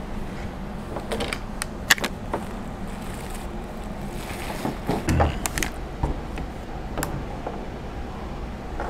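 Gear being handled and set down on a tabletop: scattered clicks and knocks with a brief rustle about halfway through, over a steady low hum.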